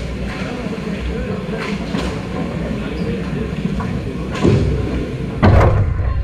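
Ice hockey play on an indoor rink: a steady rumble of arena noise with skates and sticks on the ice and a few light stick clicks. Near the end come two louder knocks, the second the loudest, as players reach the puck right by the net.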